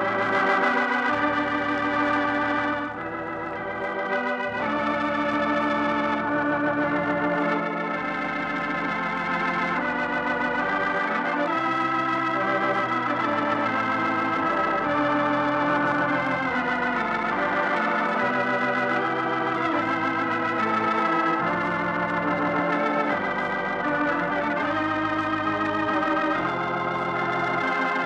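Organ music playing sustained, slowly changing chords: the closing theme of an old radio broadcast.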